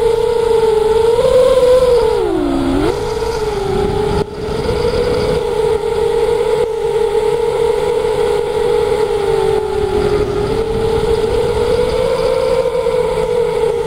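Whine of an RC aircraft's electric motor and propeller heard through the onboard camera. It holds a fairly steady pitch that wavers with throttle and dips sharply about two and a half seconds in, with wind rushing over the microphone underneath.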